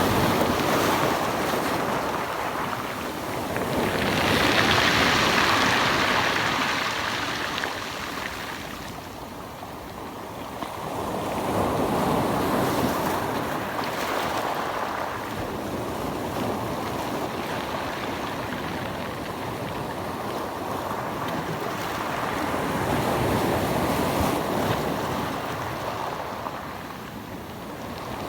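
Sea waves washing in, the sound swelling and ebbing in slow surges several seconds apart, with a brighter hissing wash about five seconds in.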